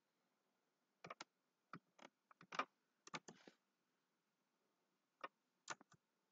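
Faint, irregular clicks of a computer mouse and keyboard. About a dozen come close together in the first half and three more near the end.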